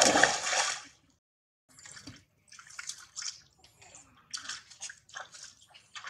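Water splashing as macaques thrash and wrestle in a pool: one loud splash at the start, then a run of smaller, irregular splashes and sloshes.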